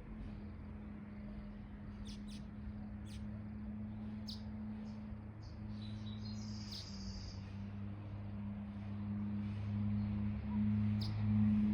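Birds chirping in short, scattered calls, several in a cluster about two to three seconds in and one more near the end, over a steady low drone that grows louder towards the end.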